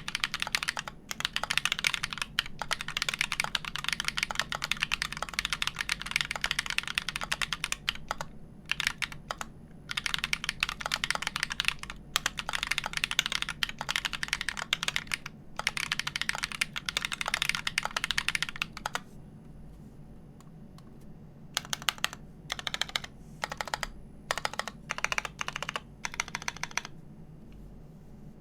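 Fast typing on a custom mechanical keyboard with lubed Everglide Dark Jade Black linear switches, a wood plate and GMK keycaps: dense runs of key clicks with short breaks. About two-thirds of the way through the typing pauses, then comes back in a few short bursts and stops near the end.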